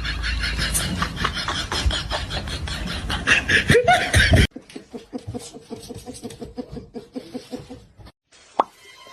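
People laughing in rhythmic bursts. The sound drops suddenly to a much quieter level about halfway through, and a brief sharp sound comes near the end.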